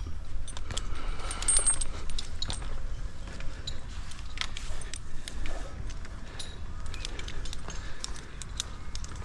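Metal climbing hardware on an arborist's harness clinking and jingling as he climbs: scattered sharp clicks, irregular, over a low rumble.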